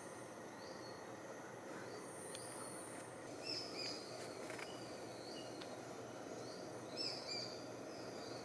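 Forest ambience: a steady high insect buzz, with a bird's short chirps repeating about once a second and two louder bird calls, a few seconds in and near the end.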